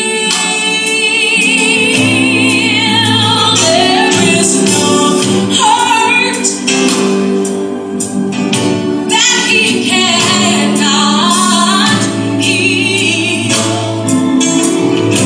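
Gospel song with a woman singing lead, her held notes wavering with vibrato over steady low accompaniment.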